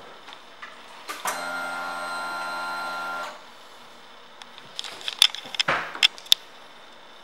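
A motorcycle's electric fuel pump buzzes steadily for about two seconds and then stops, priming the fuel system as the ignition is switched on before a start. A few sharp clicks and knocks follow.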